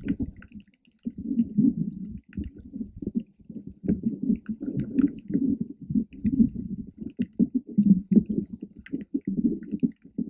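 Muffled underwater noise picked up by a GoPro inside its waterproof housing: uneven low rumbling and sloshing of water moving against the case, with scattered faint clicks.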